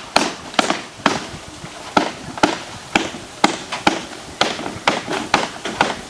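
Hammer striking nails into wood: a steady run of sharp blows, about two a second.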